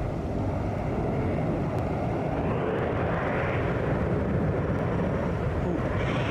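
Continuous low roar of an erupting volcano, swelling about halfway through.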